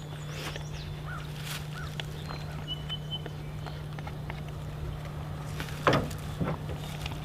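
Quiet outdoor background with a steady low hum, a brief high bird-like chirp a few seconds in, and scattered light knocks and rustles of handling, one louder about six seconds in.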